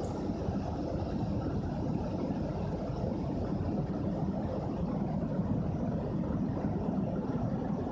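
Steady airplane cabin noise: a constant low rumble of engines and rushing air heard from inside the cabin.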